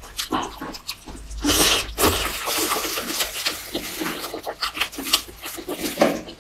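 Close-miked eating sounds: fried chicken being chewed and its meat pulled off the bone, heard as irregular crackles, clicks and rustles, with a louder burst just before two seconds in.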